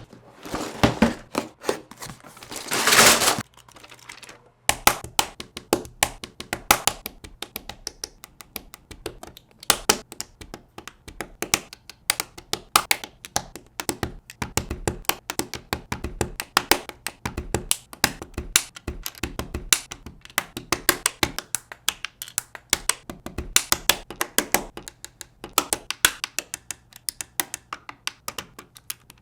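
LEGO bricks being pressed and snapped together: a fast, dense run of small plastic clicks and taps. A louder rustling noise comes before it, in the first few seconds.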